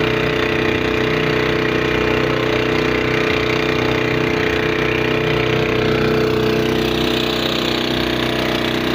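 Small boat's engine running steadily under way, a continuous even drone with a fixed pitch.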